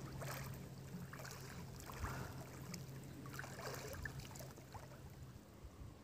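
A swimmer kicking on her back through still water: soft, scattered splashes and lapping. A faint, steady low hum runs underneath and fades out about five seconds in.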